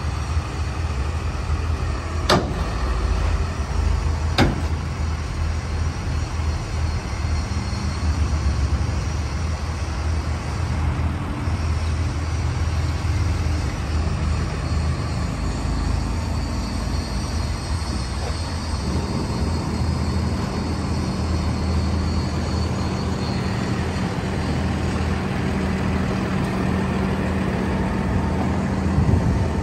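Diesel engine of a Peterbilt 548 truck idling steadily, with two sharp clicks about two and four seconds in. A higher steady hum joins the idle about two-thirds of the way through.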